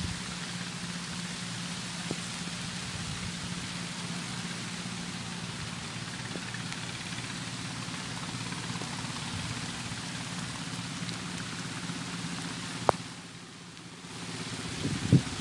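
Heavy rain falling steadily on floodwater and vegetation, an even hiss, with a steady low hum underneath. One sharp knock comes near the end, after which the rain sounds briefly dull for about a second.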